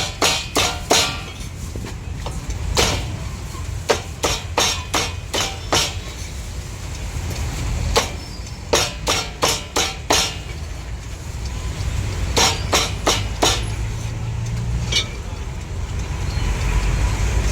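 Cleaver chopping roast meat on a chopping block: runs of sharp chops, two or three a second, broken by short pauses, over a low traffic rumble.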